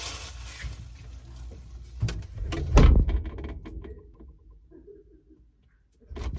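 A few knocks, then a heavy low thump just under three seconds in, with clattering that dies away to near silence.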